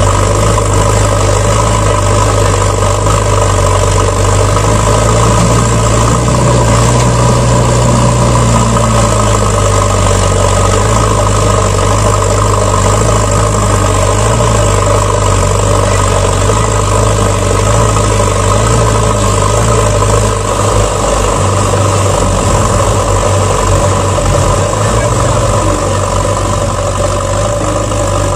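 Truck engine idling steadily, a recorded engine sound laid over a plastic toy dump truck being played with.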